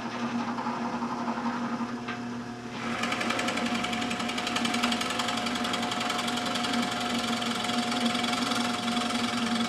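Power drill boring a 1-inch hole through a wooden frame member. The motor runs with a steady hum, and about three seconds in the cutting noise gets louder as the bit works into the wood.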